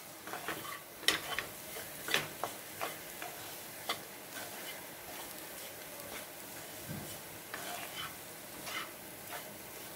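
Wooden spatula stirring diced carrots frying with ground spices in a non-stick kadai, with irregular light knocks against the pan over a faint sizzle.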